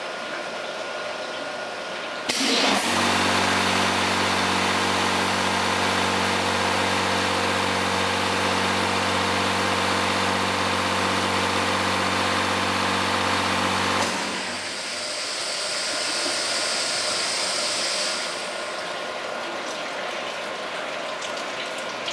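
High-pressure washer for 5-gallon water bottles running a wash cycle: about two seconds in, its pump motor starts with a loud steady hum under a dense rush of spraying water, which cuts off suddenly after about twelve seconds. A higher hiss follows for a few seconds before dying down.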